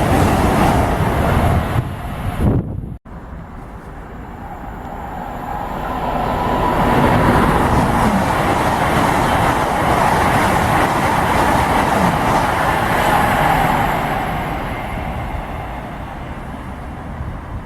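A train passing through a station. The noise swells up, holds loud for several seconds and then fades away. Near the start an earlier loud passage ends abruptly.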